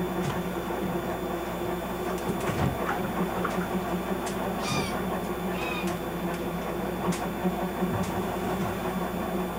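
Steady low drone of a motor yacht's engines under way, with a few brief high squeaks near the middle.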